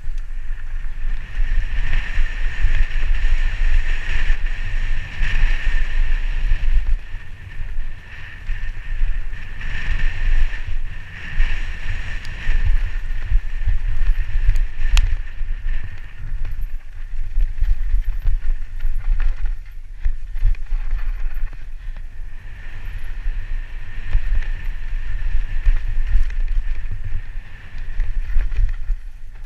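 Wind buffeting a helmet-mounted camera microphone while a mountain bike rides fast down a dirt forest trail, with tyre and trail rumble that surges and eases. A steady high whir comes and goes over it.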